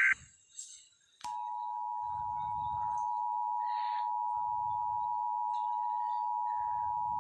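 Emergency Alert System attention signal: a steady two-tone alarm, its two pitches close together just under 1 kHz, starting about a second in and holding. Low pulses sound beneath it about every two seconds.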